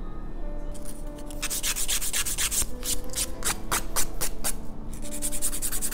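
Hand nail file rasping back and forth over a freshly cured gel nail extension, shaping the rough tip. The quick strokes start about a second in, come several a second, and pause briefly near the end.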